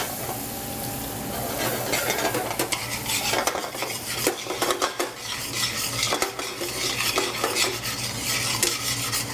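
Flour being stirred into melted butter in a pot to make a roux: a utensil scrapes and knocks against the pot again and again over a light sizzle.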